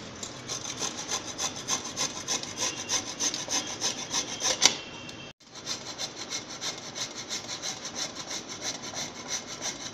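Carrot, then bottle gourd, rubbed on a small stainless-steel hand grater over a steel plate: rapid, regular scraping strokes, with a brief break about halfway through.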